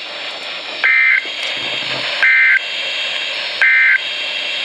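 Three end-of-message SAME data bursts from a NOAA Weather Radio alert: short, identical two-tone digital buzzes about 1.4 seconds apart, over a steady radio hiss. They mark the end of the warning broadcast.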